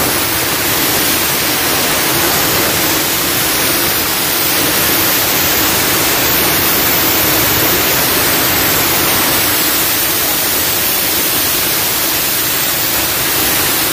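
Loud, steady hiss of compressed air from a long-nozzle blow gun, blowing out the open intake ports of a Nissan Livina engine with the intake manifold removed.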